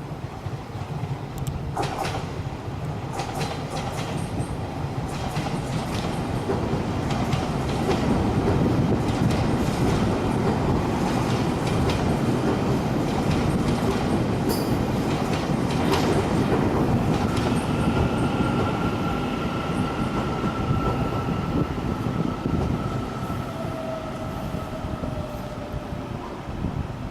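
Taiwan Railways passenger train passing on the line: wheel-on-rail running noise and clatter build up, hold loud for several seconds, then ease off. A thin, steady high whine joins in the last third.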